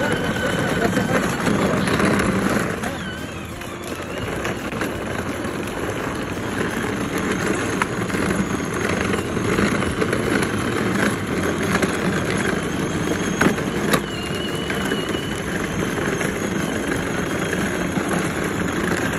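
Kalee kids' electric ride-on ATV driving over asphalt: its hard plastic wheels give a steady rolling rumble under the whir of its small electric drive motor. A couple of sharp knocks come about two-thirds of the way through.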